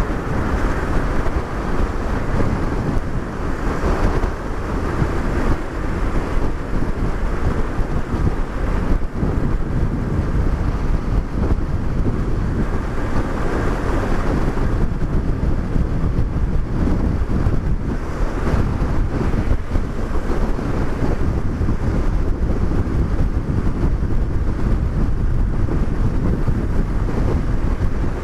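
Wind rushing over the microphone of a moving motorcycle, a steady loud rumble with the bike's engine running underneath.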